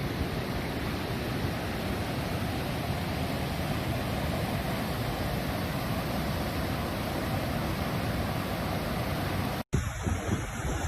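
Steady roar of rushing floodwater. It cuts out abruptly near the end and resumes a moment later.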